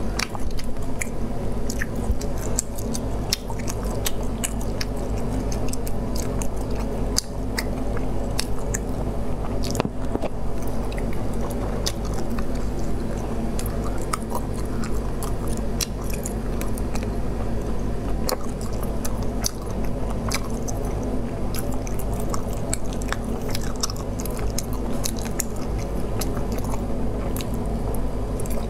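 Close-miked eating sounds: chewing, biting and wet mouth noises with scattered small clicks and crunches as food is picked apart by hand and eaten, over a steady low hum.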